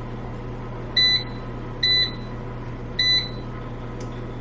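Air fryer control panel beeping three times at uneven intervals, short high electronic beeps as its buttons are pressed to set it going. A steady low hum runs underneath.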